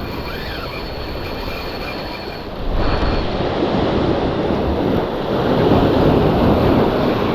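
Steady rush of surf and wind on the microphone, growing louder about three seconds in, with a faint thin high whine in the first couple of seconds.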